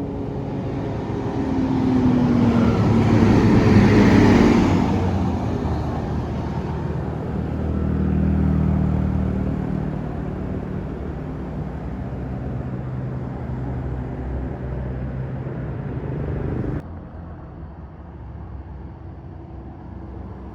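A bus drives past on the road, loudest about four seconds in with a falling pitch as it goes by, followed by a heavy engine running steadily. The sound drops off abruptly near the end.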